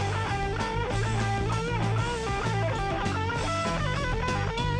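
Hard rock band playing: a lead electric guitar line with bent, sliding notes over bass guitar and a drum kit, with no singing.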